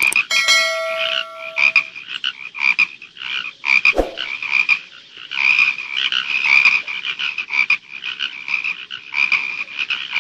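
Frogs croaking in a quick, uneven run of short croaks, laid over the paper frog toys. A short ringing chime sounds just after the start, and a single knock about four seconds in.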